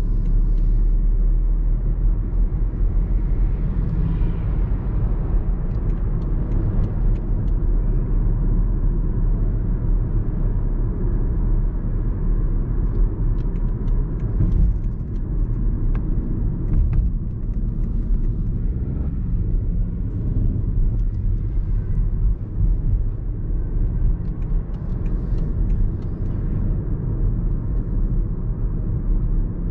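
BMW 118i's 1.5-litre turbocharged three-cylinder engine and tyre noise on the move: a steady low rumble with a few faint ticks.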